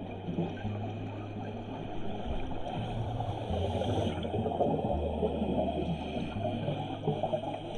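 Background music with a low bass line that holds each note and steps to a new one every second or two, under a dense bubbling, rushing texture.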